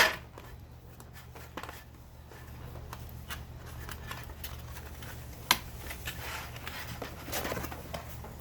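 Packaging being handled while a microphone is taken out of its box: a sharp knock at the start and another about five and a half seconds in, scattered small clicks, then a rustle near the end, over a steady low hum.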